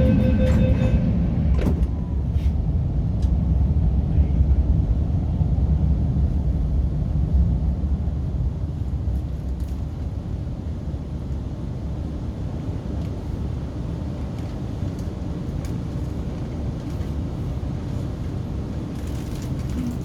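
MTR Q-Train door-closing chime ending about a second in, a door clunk just after, then the steady low rumble of the train interior as it moves off through the tunnel.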